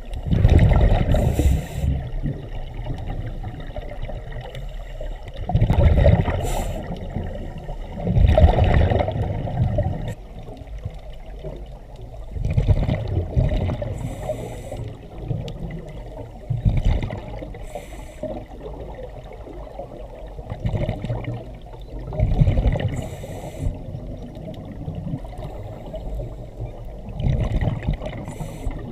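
Scuba diver breathing underwater through a regulator: a hiss on each inhale, then a loud bubbling of exhaled air, repeating every three to four seconds.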